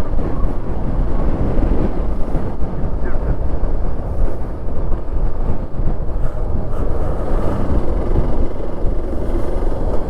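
A motorcycle on the move: wind rushing and buffeting over the microphone, with the engine running underneath, steady throughout.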